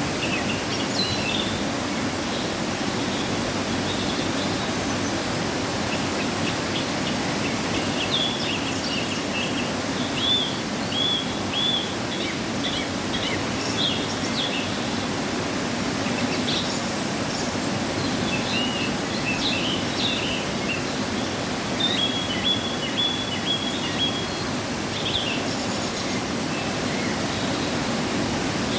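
Waterfall running high after rain in a steady rush of falling water, with small birds chirping and calling over it.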